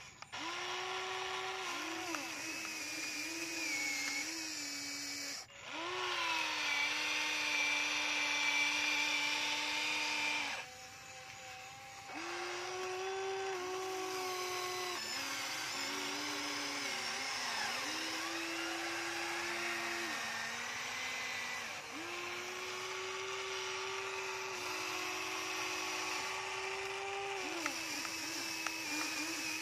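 Electric motors of a toy-scale RC excavator whining as the boom, arm and bucket work. The pitch steps up and down as different functions start and stop, with short breaks about five seconds in and around the eleven-second mark.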